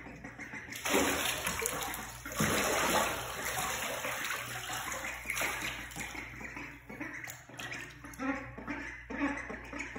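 Bathwater splashing and sloshing as young ducks paddle and bathe in a tub, with a burst about a second in and the loudest splashing at about two and a half seconds, then smaller splashes.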